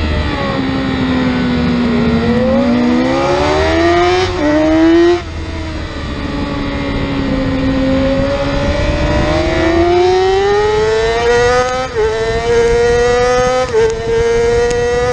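Yamaha R6 600 cc inline-four race bike engine at race pace. The revs fall for about two seconds and then climb again, with a gear change about four seconds in. The engine eases off just after five seconds, then pulls hard and rises steadily, with two quick upshifts near the end, over steady wind rush.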